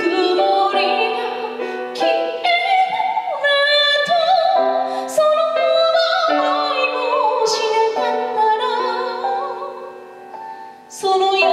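A woman singing a slow ballad with vibrato while accompanying herself on a grand piano. The sound thins out about ten seconds in, then a strong piano chord and the voice come back in near the end.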